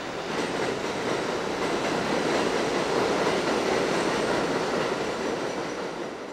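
Elevated subway train running past on its tracks, a steady rush of wheel and rail noise that swells about half a second in and fades near the end.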